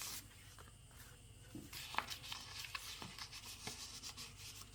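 Faint rustling and rubbing of the paper pages of a handmade junk journal as they are handled and turned, with a couple of light clicks, one at the start and one about two seconds in.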